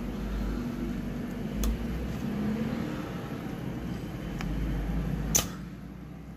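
A small tool prying at the plastic housing of a compact fluorescent bulb: a low handling rumble with a few light clicks, and one sharp plastic click a little after five seconds in.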